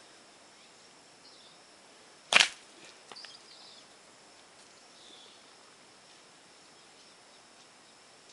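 A catapult (slingshot) shot: one sharp, loud snap about two seconds in, followed a moment later by a few faint clicks. The rest is a quiet background.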